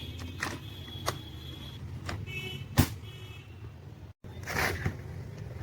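Laptop beeping: a long high electronic beep of nearly two seconds, then two short ones. Sharp clicks and knocks of handling come between them, the loudest a knock about three seconds in.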